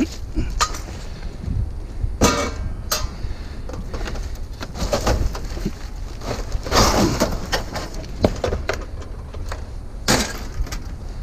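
Discarded scrap items, light fixtures among them, clattering and knocking as they are pulled out and moved about, a string of separate knocks and scrapes over a steady low rumble.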